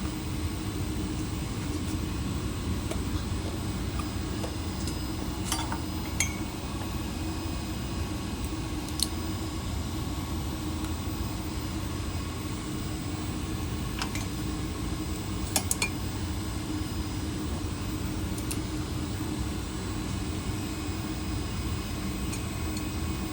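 Light metallic clinks and taps of plumbing tools and copper pipe parts being handled, a few scattered through the stretch, over a steady low hum.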